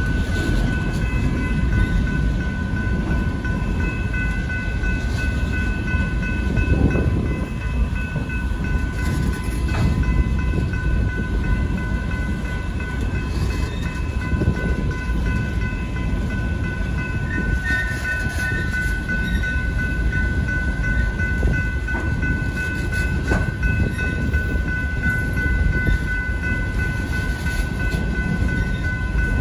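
Coal cars of a Union Pacific coal train rolling steadily past a grade crossing: a continuous rumble of wheels on rail with occasional clicks. The crossing's warning bell rings throughout as a steady high tone over the rumble.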